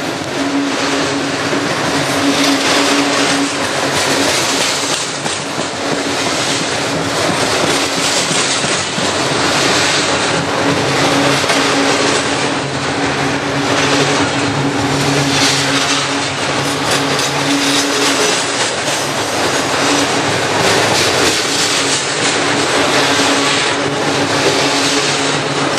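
Freight train of double-stack container cars rolling past close by, a steady loud rumble and clatter of steel wheels on the rails with a low steady hum underneath.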